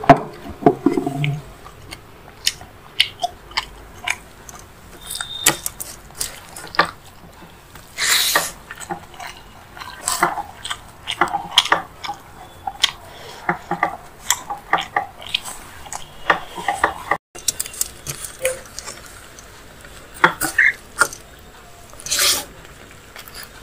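Close-miked eating sounds: wet chewing and mouth smacks as a person eats rice mixed with paneer masala by hand. Short clicks come irregularly, with a couple of longer, louder smacks.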